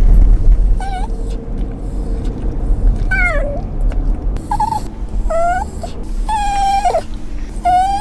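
A Chihuahua whining and crying in about six short, high-pitched calls, some rising and some falling in pitch, with a longer held whine near the end.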